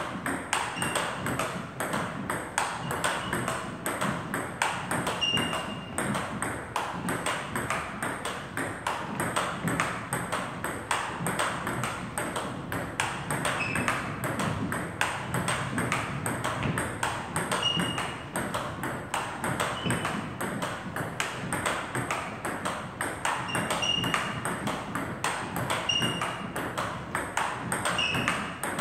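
Table tennis balls struck by rubber paddles and bouncing on the table in a fast continuous drill, an even run of sharp clicks at a few per second.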